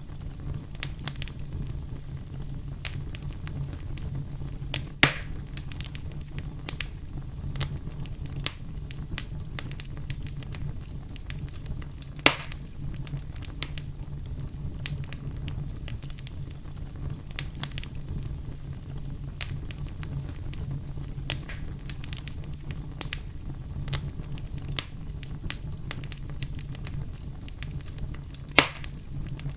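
Campfire crackling steadily with many small snaps over a low steady rumble, and three louder pops from the burning wood spread through it.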